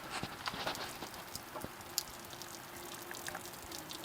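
Heavy falling snow hitting surfaces: a soft steady hiss full of irregular small ticks, like light rain.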